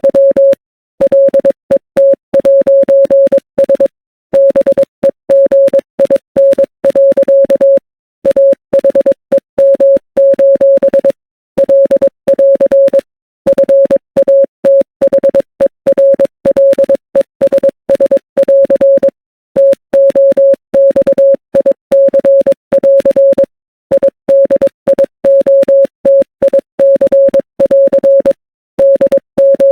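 Morse code beeps: a single steady tone keyed on and off in short and long pulses, dots and dashes, with brief pauses between letters and longer ones between words, spelling out a message.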